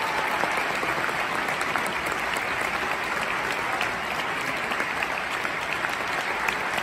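Large theatre audience applauding: dense, steady clapping from many hands.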